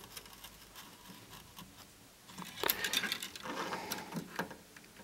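Small clicks and scrapes from a soldering iron and a thin wire being worked on a circuit board, with a quick cluster of clicks from about halfway through.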